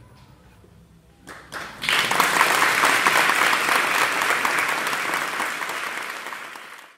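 Audience applause: a few scattered claps, then the whole audience clapping about two seconds in, slowly thinning out until the sound cuts off.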